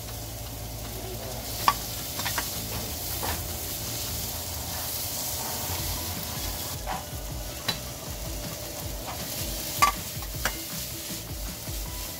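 Food sizzling as it fries in a pan while it is stirred, with several sharp clicks of the cooking utensil knocking against the pan.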